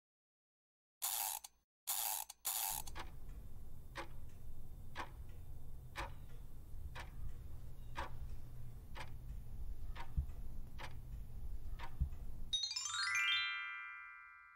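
Quiz countdown timer sound effect: three short whooshes, then a clock ticking once a second for about ten seconds over a low drone. It ends in a rising chime as the countdown runs out and the answer is revealed.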